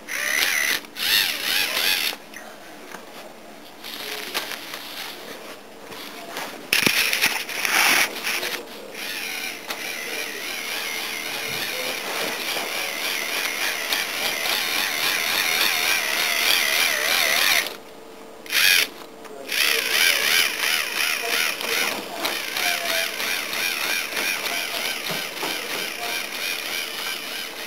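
K'nex electric motors driving the crawler's plastic gears and treads, giving a high, wavering whine with a rattling gear chatter. It starts and stops several times, with its longest pause about two-thirds of the way through.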